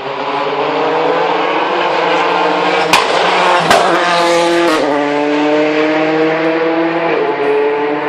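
Rally car engine running hard under acceleration, its note rising, with two sharp cracks about three seconds in. The engine note then steps down sharply twice, around five and seven seconds in.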